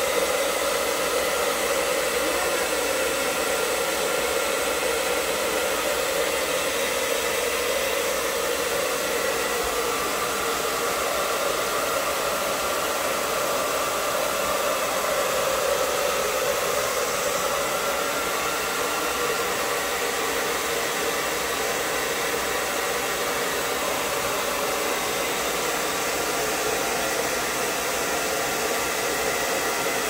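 Handheld hair dryer running continuously, a steady rush of blown air with a constant hum.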